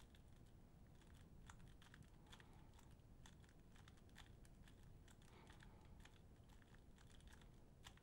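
Faint clicking of a plastic 3x3 puzzle cube's layers being turned by hand, many quick irregular clicks in a row.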